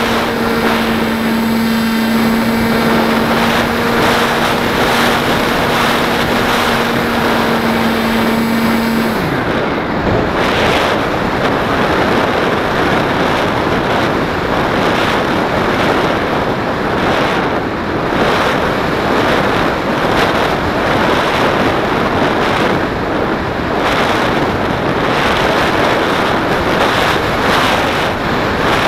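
A radio-controlled model plane's motor and propeller holding a steady hum for about nine seconds, then cut: the pitch drops away and only the rush of wind over the onboard camera remains as the plane glides.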